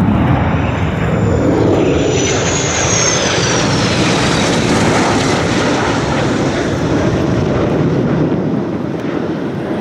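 Turbofan jet engines of an Embraer ERJ 145 and two escorting F-16 fighters flying past in formation: a loud, steady rushing roar, with a high whine that falls in pitch about two to four seconds in as they go by.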